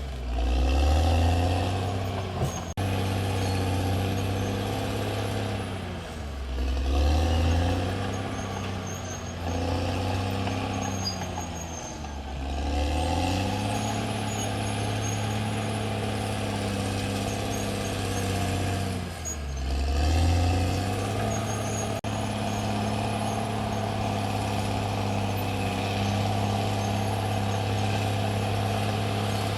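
Caterpillar D6R XL bulldozer's diesel engine running steadily. Its pitch sags and recovers four times, at the start and at roughly six-second intervals, as the engine is loaded and throttled.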